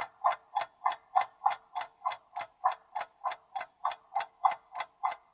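Clock-tick sound effect of a quiz countdown timer, ticking evenly about three times a second.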